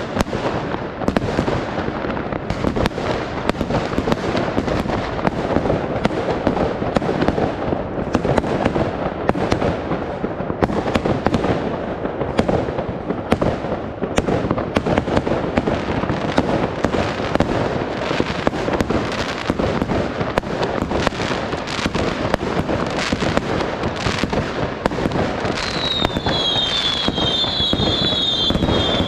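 Dense fireworks barrage: a continuous stream of bangs and crackling from many shells and firecrackers going off at once. A high warbling whistle joins in about three and a half seconds before the end.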